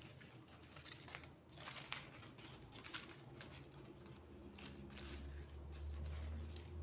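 Dry banana-leaf fibre strips rustling and crackling as they are threaded and pressed into a hand weave, with a handful of short scratchy crackles. A low rumble comes in about five seconds in.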